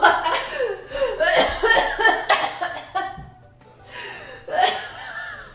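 A woman coughing hard after breathing in powdered bath bomb mix, mixed with laughter. There is a short lull about three seconds in, then another bout near the end.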